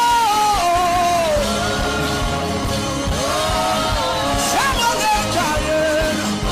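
Gospel worship music: a voice sings long held notes that slide from one pitch to the next, over a steady drum beat.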